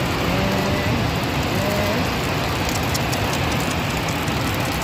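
Muddy flash-flood water rushing down a gully, a constant loud rush.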